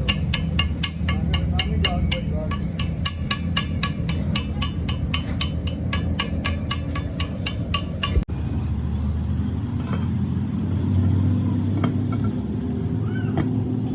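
Rapid, evenly spaced metallic knocks, about four to five a second, over a steady low machine hum. They stop abruptly about eight seconds in, leaving the hum with a few scattered clicks.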